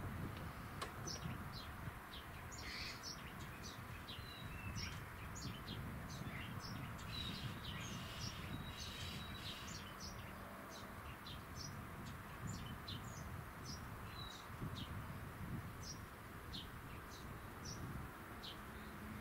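Small birds chirping and twittering, many short high calls one after another, over a steady low outdoor rumble.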